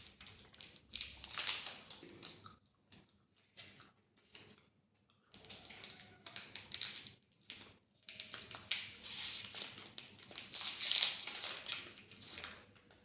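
Close-up eating sounds: bursts of crisp, crackly chewing and crunching, with small clicks, broken by short pauses.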